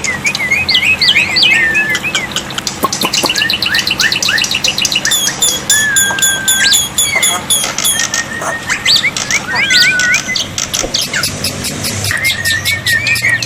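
Black-winged myna (jalak putih) singing: a fast, unbroken run of varied whistles, chirps, rising and falling slurred notes and rapid repeated chip trills.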